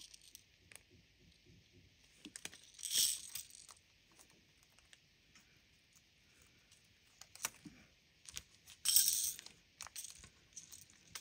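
Small faceted glass beads clinking and rattling against plastic in a few short bursts, the loudest about three seconds in and again near nine seconds, with scattered light clicks between.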